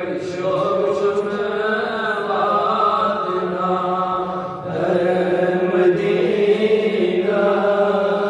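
A man's solo devotional chanting in long, drawn-out melodic notes, amplified through a microphone, with one short break for breath about halfway through.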